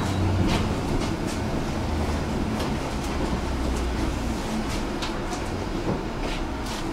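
Tram running on its rails: a steady low rumble with a hum, broken by sharp clicks about once a second.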